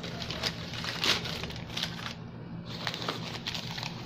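Crumpled newspaper packing paper crinkling and rustling as it is pulled out of a cardboard box by hand, in irregular crackles with a short pause a little past two seconds in.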